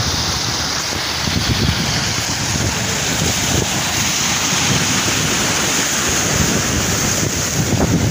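Sea waves washing against shoreline rocks, with wind buffeting the microphone in gusty low rumbles.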